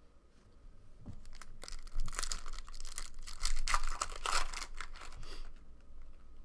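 Trading-card pack wrapper being torn open and crinkled, a run of crackly rips and rustles from about a second and a half in that dies away near the end.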